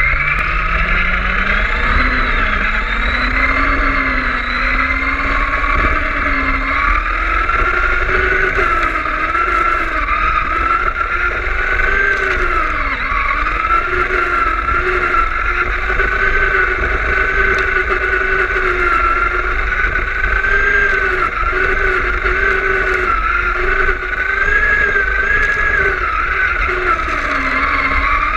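Onboard sound of a Traxxas Rustler RC truck's electric motor and drivetrain whining as it drives, the pitch climbing as it accelerates at the start and then rising and falling with speed, over a steady rumble of tyres and chassis on asphalt.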